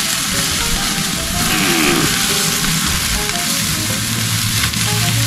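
Barbecue-sauced chicken sizzling steadily on a hot charcoal grill. Background music plays underneath, with a low hum coming in late.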